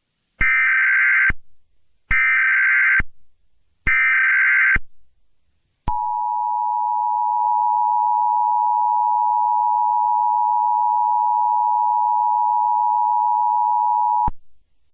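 Emergency Alert System SAME header: three short bursts of shrill digital data tones, about a second each, followed by the EAS two-tone attention signal, a steady dissonant tone held for about eight seconds before it cuts off.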